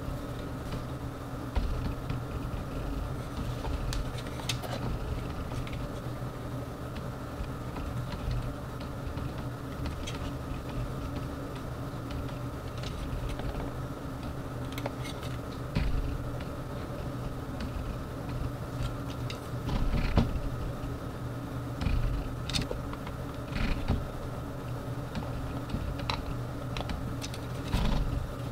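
Scattered small clicks, taps and knocks of a plastic lightstick being handled and its base twisted, every few seconds over a steady background hum.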